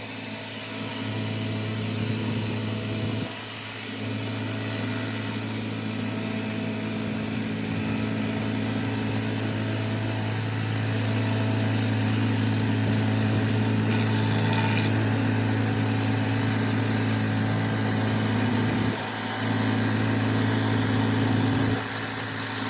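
Pressure washer's gas engine running steadily with a constant hum and a hiss above it; the hum drops out briefly a few times.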